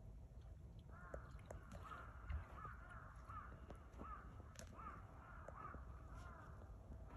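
Crow cawing faintly in a long, steady series of repeated caws, starting about a second in.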